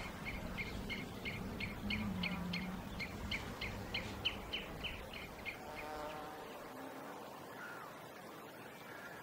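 A bird calling a rapid series of short, high chirps, about three or four a second, that stops about five seconds in.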